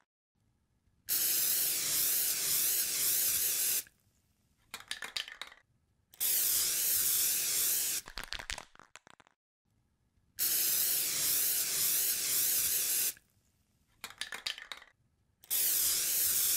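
Aerosol spray can hissing in four long bursts of about three seconds each, with short bursts of rapid rattling clicks in the quiet gaps between them.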